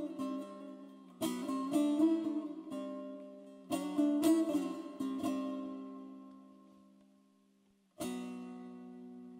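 Dotar, the Persian two-string long-necked lute, played solo: short flurries of quick plucked notes about a second, three and a half and five seconds in, each left to ring and die away almost to nothing, then a single strummed chord near the end that rings on.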